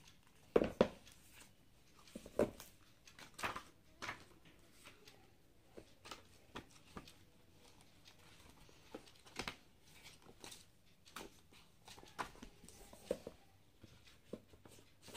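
Comic books and their plastic and paper wrapping being handled: scattered rustles, soft taps and knocks, and pages being leafed through.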